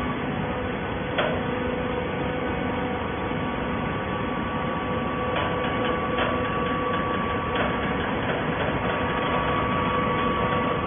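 Horizontal hydraulic baler running: a steady mechanical hum with a held higher tone over it, and a few sharp clicks or knocks about a second in and again between five and eight seconds in.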